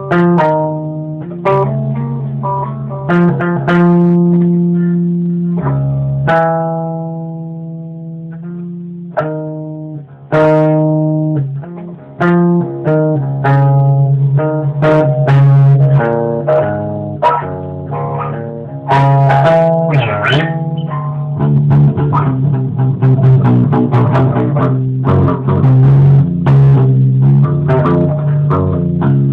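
Electric bass guitar played solo: single notes struck and left ringing, several at a time, the notes coming faster and denser in the last third.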